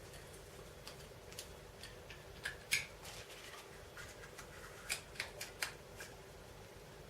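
Irregular light clicks and taps of small metal parts being handled as a VAZ 2101 mechanical fuel pump is put back together by hand, its diaphragm and large spring being fitted. The loudest click comes a little before three seconds in, with a quick run of clicks around five seconds, over a faint steady hum.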